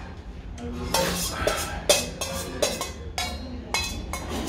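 A metal spoon clinking and scraping against a stainless steel soup bowl, about eight sharp clinks over three seconds, the loudest about two seconds in.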